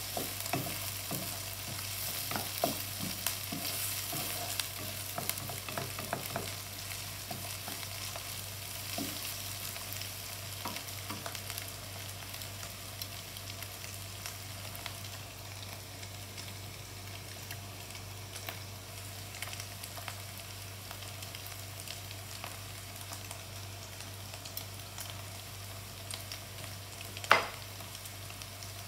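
Sliced sausages, ham and onions sizzling as they fry in a nonstick wok, with a wooden spatula scraping and stirring through them for the first several seconds before the sizzle settles to a steadier hiss. A single sharp knock near the end.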